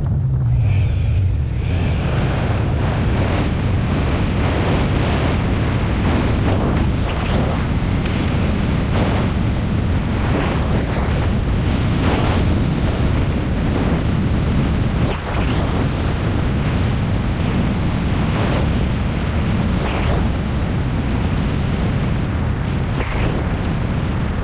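Heavy wind noise buffeting the microphone of a moving motorcycle, a dense steady rush with the engine's sound buried beneath it.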